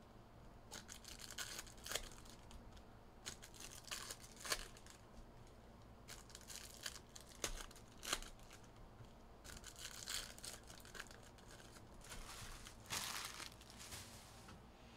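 Plastic wrapping on trading-card packs being torn open and crinkled by hand, with scattered clicks of handling. The longest tear comes near the end.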